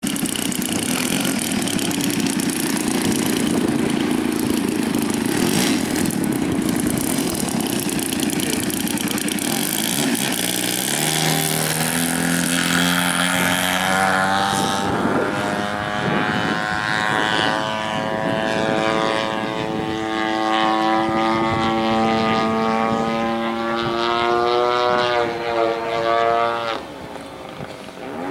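Giant-scale RC Extra 300's Desert Aircraft DA-120 two-stroke gas engine and propeller running at high power through the takeoff and climb, a harsh noise for the first ten seconds or so. Then a clear, steady engine note comes through, rising slightly in pitch and wavering as the plane flies, and it drops in pitch and level briefly near the end.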